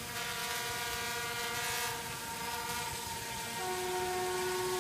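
Drone's motors and propellers humming with a steady whine of several tones, which change pitch about three and a half seconds in as the motor speed changes.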